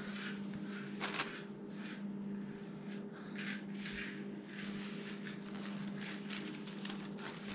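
Irregular light scrapes, knocks and rustles of handling over a steady low electrical hum.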